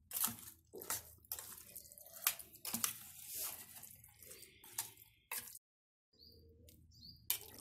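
A metal spoon stirring raw chicken pieces through thick yogurt and spice marinade in a steel bowl: wet squelching, with many sharp clicks and scrapes of the spoon against the bowl.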